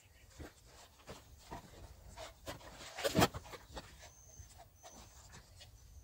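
Gloved hands handling plastic: a plastic bag and a plastic funnel rustling and crinkling, with light clicks and taps and one louder crackling crinkle about three seconds in. Three short, faint high-pitched chirps come near the end.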